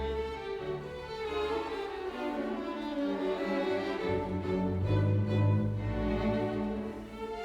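Background music of bowed strings, violin over a low cello line, playing slow held notes.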